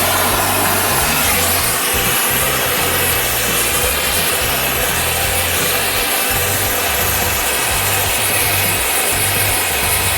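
Background music with a stepping bass line and a dense, steady upper layer.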